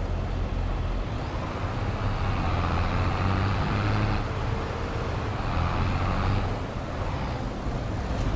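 Diesel engine of large farm harvesting machinery running steadily under load, a low drone with a broad rushing noise over it.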